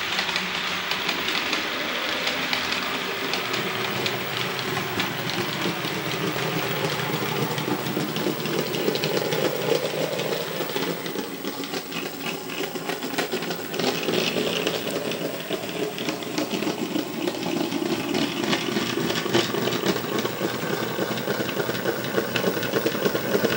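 Model G5 tank locomotive running on the track, hauling four coaches up a gradient: a steady mechanical running sound with fine, fast clicking throughout. Four coaches is a bit too much for the locomotive on this gradient.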